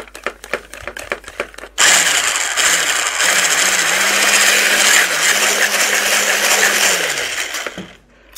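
Hand blender with a whisk attachment whisking egg, mayonnaise and sugar batter in a plastic bowl. After a few handling clicks, the motor starts abruptly about two seconds in. Its speed dips a few times before it settles into a steady whir with the whisk rattling through the batter, and it winds down near the end.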